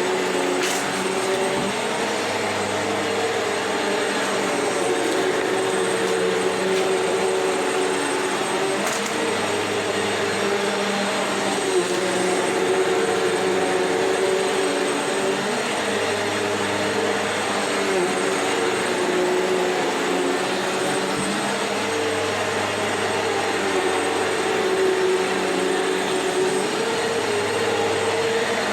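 Vacuum cleaner running steadily over an old, worn carpet, a continuous motor whine with a low hum that comes and goes every few seconds. A couple of brief crackles come through, about a second in and again around nine seconds, as it picks up grit.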